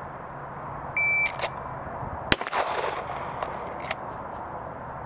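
A shot timer gives one short beep, and just over a second later a single 9mm pistol shot from a Shadow Systems DR920 cracks and echoes: the start signal and the one-round draw for a 1.5-second par time. A few light clicks fall around the beep and the shot.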